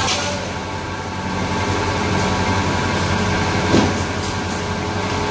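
Continuous namkeen fryer and conveyor line running with a steady mechanical hum, with a couple of brief knocks, one at the start and one near the end.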